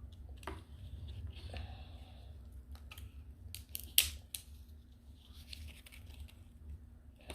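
King crab leg shells being cracked and picked apart: scattered sharp snaps and crackles, the loudest snap about four seconds in, over a steady low hum.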